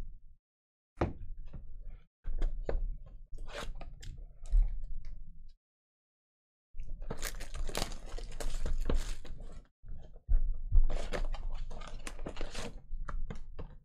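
Clear plastic shrink wrap crinkling and tearing as it is peeled off a trading-card hobby box, then foil card packs rustling as they are lifted out. The crackling comes in irregular bursts with short silent breaks.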